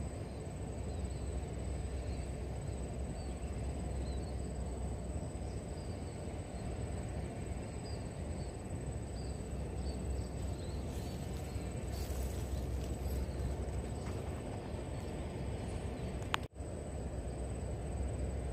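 Outdoor riverside ambience: a steady low rumble with faint, high chirping calls scattered through it, and the sound cutting out for an instant near the end.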